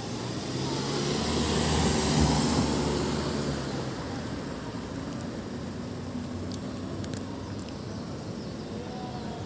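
Street traffic: a motor vehicle passes close by, its engine and tyre noise rising to a peak about two seconds in and fading by about four seconds, leaving a steady traffic hum.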